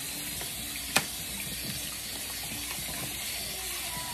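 Water running at the kitchen sink as goat meat is rinsed and drained in a bowl, with one sharp knock about a second in.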